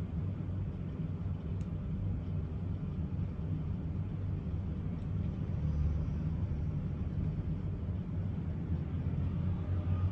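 A steady low rumble of background noise, unchanging, with no distinct events in it.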